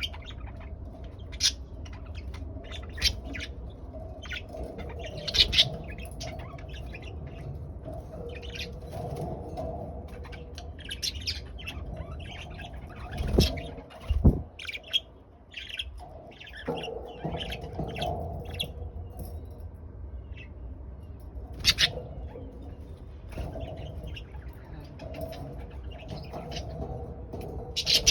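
Pet budgerigars chirping in many short, high calls throughout, with two sharp knocks about halfway through.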